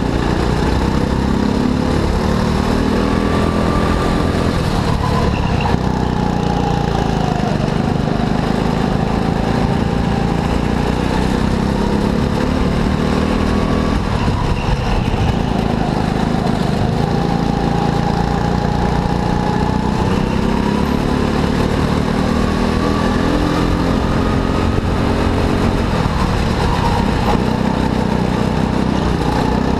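Go-kart engine running hard through a lap, its revs repeatedly climbing and then dropping back, with clear lulls about a quarter of the way in, about halfway, and near the end.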